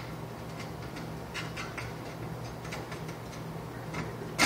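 Light plastic clicks and ticks from hands fitting wires into a fluorescent lampholder, with one sharper click near the end, over a steady low hum.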